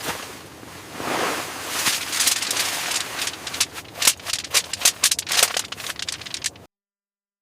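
Rustling and crackling, a noisy scraping texture with a run of quick sharp crackles in the second half, cutting off abruptly near the end.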